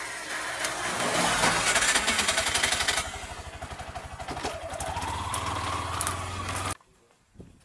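Small motorcycle engine running as it rides past close by, its rapid pulsing loudest about one to three seconds in. An engine note then rises steadily, and the sound cuts off abruptly near the end.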